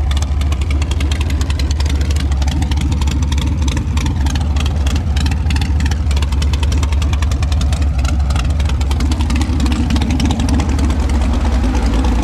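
A 416-cubic-inch LS3 V8 running steadily at idle, a loud, deep and even exhaust note with no revving.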